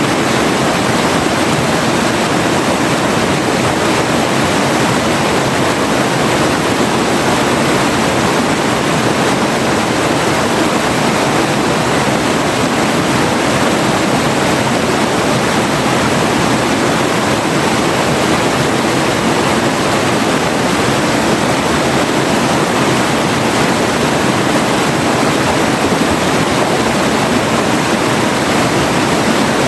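River water rushing and splashing over rocks in a steady, loud flow.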